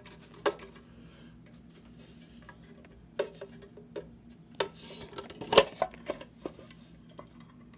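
Scattered metal clicks and clanks as the painted metal cover of an old manual motor starter box is worked loose and lifted off; the loudest clank comes a little past halfway.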